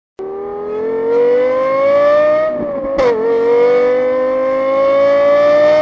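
Race car engine revving up under acceleration, its pitch climbing steadily, dropping at a gear change about three seconds in, then climbing again.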